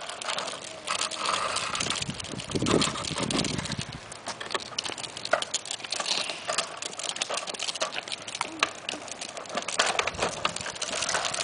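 Hard plastic wheels of a child's tricycle and the training wheels of a small bike rattling over a concrete sidewalk, with many sharp clicks and knocks. There is a short low rumble about two and a half seconds in.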